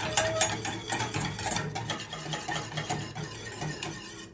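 Wire whisk stirring a thin cocoa sauce in a small stainless-steel saucepan, a fast run of metal clinks and scrapes against the pan that grows quieter near the end.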